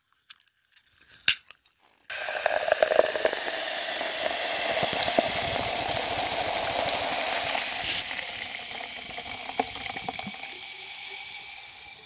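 A drink can clicks open about a second in, then carbonated soda is poured into a glass with a dense, steady fizz that starts suddenly and slowly dies down over the last few seconds.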